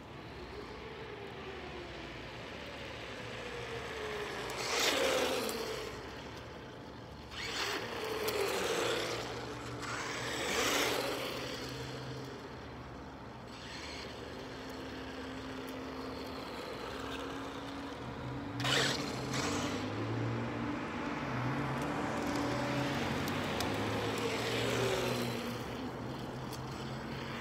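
Traxxas Stampede 4x4 RC monster truck with a 4,350 kV brushless motor on a 2S LiPo making repeated fast passes. Its motor whine and tyre noise swell up and fade as it goes by, about five times, with the pitch dropping as it passes.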